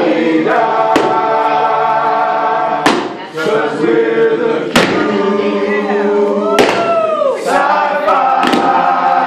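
Music with voices holding long sung chords and gliding vocal lines, cut by a sharp hit about every two seconds.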